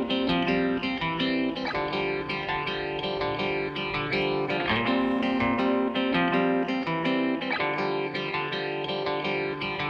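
Background music: plucked guitar playing a melody with frequent picked notes.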